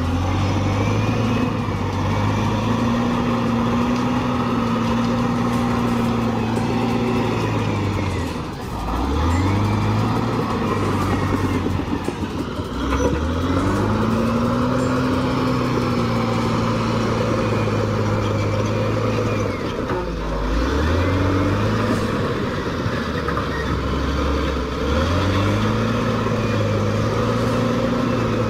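Heavy bulldozer diesel engine running hard. Its pitch drops and climbs back up about four times as it works.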